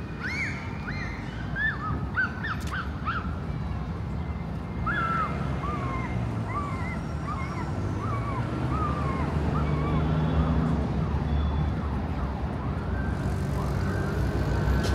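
City street traffic with a steady low rumble, over which a long series of short, rising-and-falling high chirps repeats every half second or so. A steady high tone comes in near the end.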